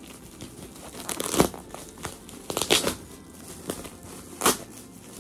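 Gift packaging crinkling as it is unwrapped by hand, in several short rustling bursts, the loudest a little over a second in.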